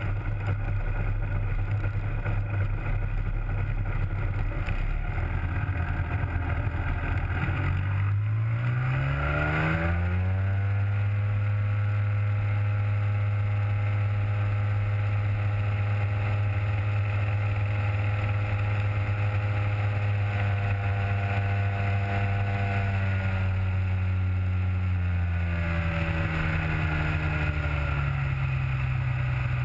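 Rotax 503 DCSI two-stroke twin and three-blade propeller of a Hy-Tek Hurricane 103 ultralight, heard from the open cockpit. The engine runs at low power, is throttled up with a rising pitch about eight seconds in, holds a steady high power, then is throttled back with a falling pitch near the end.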